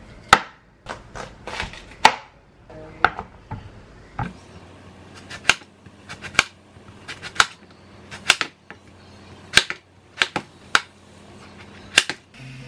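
Chef's knife slicing through a zucchini and knocking down onto a cutting board: a sharp chop, irregularly spaced at about one to two a second.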